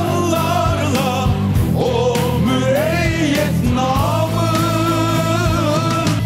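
Music with a singing voice holding wavering notes over a steady accompaniment and beat.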